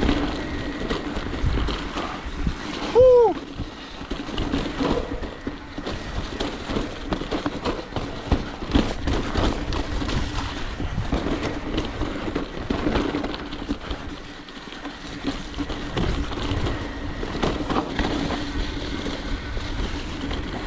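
Mountain bike rolling down a rough dirt singletrack: tyre noise with frequent knocks and rattles from the bike over bumps and rocks, over a steady hum.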